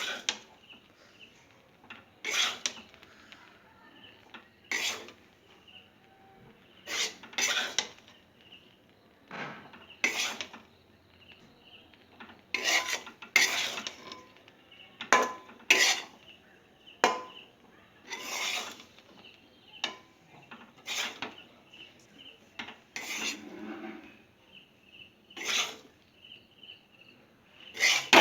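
A spatula scraping and stirring grated coconut around a kadai (wok), in irregular strokes about every one to two seconds.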